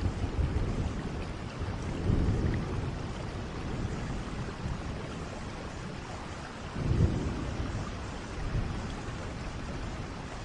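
Steady rain falling, with low rolls of thunder swelling about two seconds in and again, loudest, about seven seconds in.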